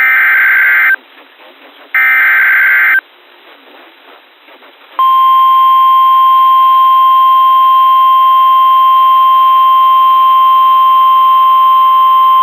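Emergency Alert System SAME header: two one-second bursts of harsh warbling data tones, then after a short gap the steady NOAA Weather Radio 1050 Hz warning alarm tone starts about five seconds in, announcing a new National Weather Service warning.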